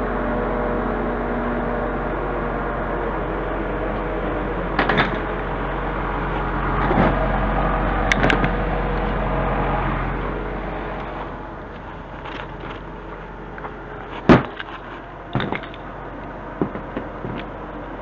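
Scania truck's diesel engine running to drive the Palfinger loader crane's hydraulics, a steady hum that drops to a lower level about ten seconds in. Chain slings and their steel hooks clink and knock several times, once sharply in the second half.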